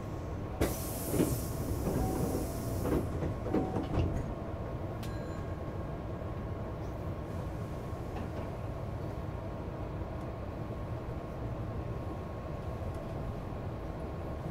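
Hankyu 8000 series train at a station stop: a hiss of compressed air for about two seconds, with several clunks of the sliding doors shutting, followed by a steady low hum from the train.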